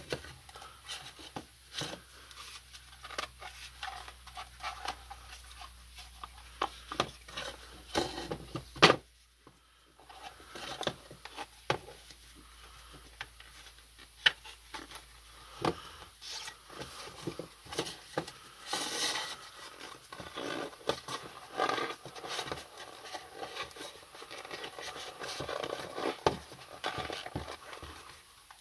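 Handling noises from fitting an inner tube into a stroller tyre: scattered clicks, taps and rubbing of rubber, with a short quiet gap about nine seconds in.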